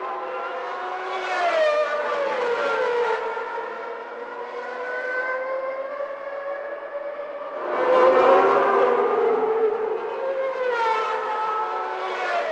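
Formula One car engines running at high revs, a high-pitched whine that glides up and down in pitch, loudest about eight seconds in.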